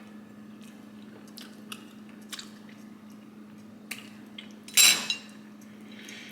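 Someone eating French toast: scattered small clicks of a fork against a plate and soft chewing, with one louder clatter or scrape about five seconds in.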